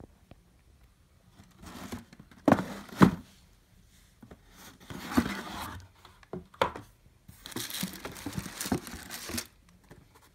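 Cardboard shoebox being opened and the plastic wrapping around a pair of leather boots rustling and crinkling as they are handled, in several bouts, with two loud knocks about half a second apart about two and a half seconds in.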